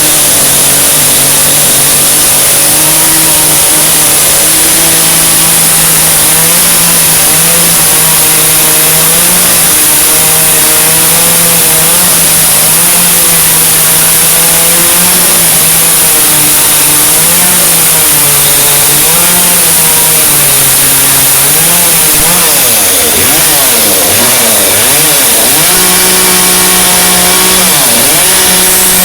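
Two-stroke chainsaw running hard, its pitch steady at first, then dipping and rising again several times in the last third as the throttle or load changes.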